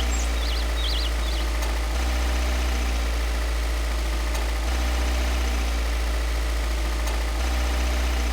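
Engine idling with a steady deep rumble that swells slightly every few seconds in a repeating pattern, with a few bird chirps that stop about half a second in.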